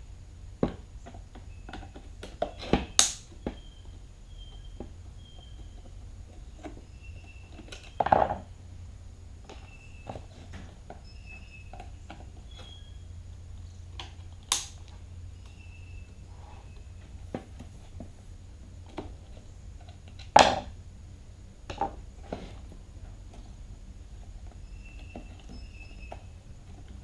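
Scattered clicks, taps and rattles of screws, a screwdriver and the plastic housing of a Black & Decker electric string trimmer being handled while it is taken apart, with four louder knocks spread through the stretch, over a steady low hum.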